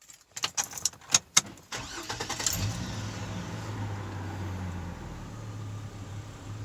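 A few sharp clicks, then a car engine starting about two seconds in and settling into a steady idle.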